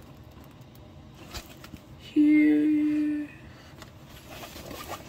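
A woman hums one steady note for about a second, midway through, with a brief higher note over its start. Around it are faint crinkles and taps from the plastic-film-covered diamond painting canvas being handled.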